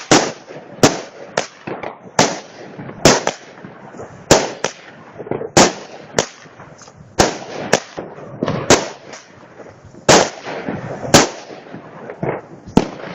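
Firework battery (cake) firing shot after shot: sharp bangs at roughly one a second, irregularly spaced, with crackle and noise between them.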